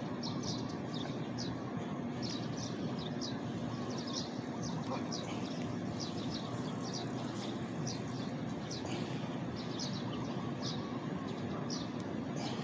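Birds chirping in short, high notes that repeat in quick clusters throughout, over a steady low background hum of outdoor noise.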